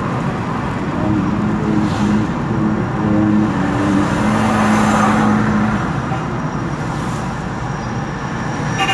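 Road and engine noise inside a moving car, with a Quran recitation starting on the car radio: a reciter's long, held notes from about a second in until about six seconds in.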